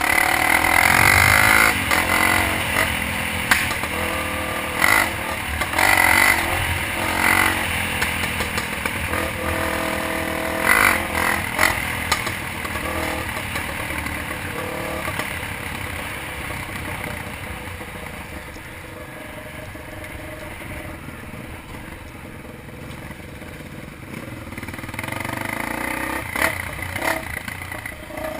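Dirt bike engine revving and running, with rattling and scraping. It is loudest over the first dozen seconds, eases off in the middle and builds again near the end.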